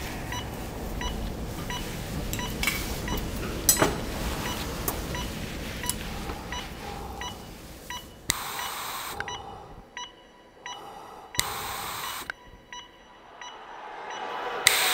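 Hospital heart monitor beeping steadily about once a second. In the second half, three hisses about a second long come from breathing through an oxygen mask.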